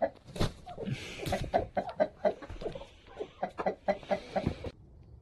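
Brown hens clucking in quick, repeated short notes while being stroked, with two brief rustles of feathers. The sound cuts off suddenly near the end.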